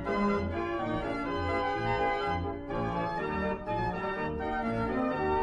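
Background music led by an organ: held chords changing every second or so over a bass note pulsing about twice a second.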